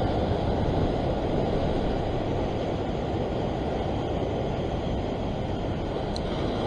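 Steady rush of ocean surf breaking on shore rocks, mixed with wind noise on the microphone.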